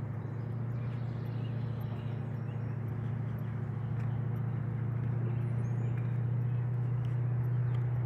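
A steady low hum that grows slightly louder, with faint, scattered bird chirps high above it.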